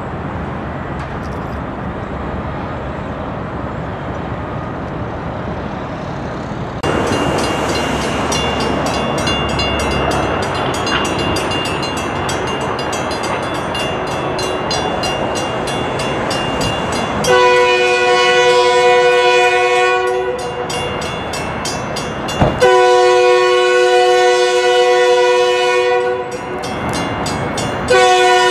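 KLW NZE15B genset switcher locomotive blowing its horn for a grade crossing: two long blasts, then a third beginning near the end. Under the horn, a crossing bell rings rapidly and steadily and the approaching locomotive's engine runs. The first several seconds are a steady rumble before the bell starts.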